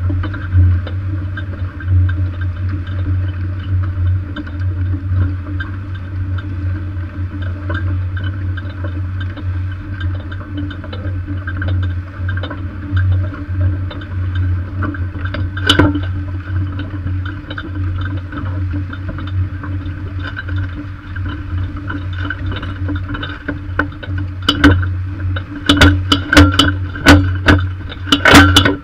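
Steady low rumble and rattle of a tractor-drawn Lemken Variopack furrow press rolling over freshly ploughed soil behind a Massey Ferguson 7485 and Lemken Europal plough, picked up through the press itself. Sharp knocks come once about halfway and in a quick run near the end.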